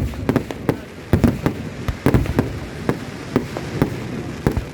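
Fireworks display going off: a rapid, irregular string of sharp bangs, several a second, over a continuous low rumble of further bursts.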